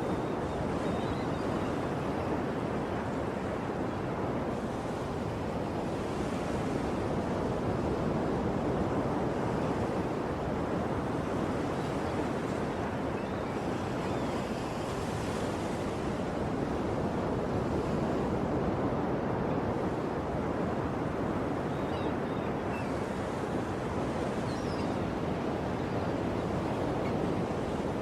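Ocean waves washing steadily onto a shore, with swells now and then, and a few faint high bird chirps.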